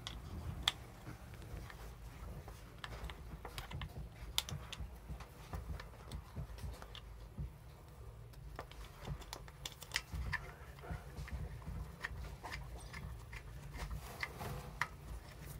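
Scattered light clicks and taps as a mounting bolt is started by hand on a Volvo Penta fuel pump, over a low steady rumble.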